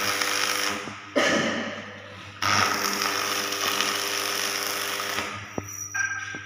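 Stick (shielded metal arc) welding on mild steel: the arc crackles and hisses, struck in two short bursts in the first couple of seconds, then held steadily for about three seconds before it goes out near the end. A steady electrical hum runs underneath.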